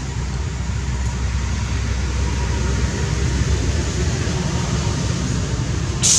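Steady low background rumble with no distinct events, and a brief high hiss near the end.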